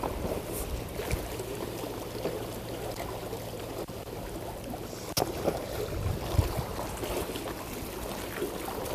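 Seaside ambience on a breakwater: wind on the microphone and sea water, with a steady low hum underneath and a single sharp click about five seconds in.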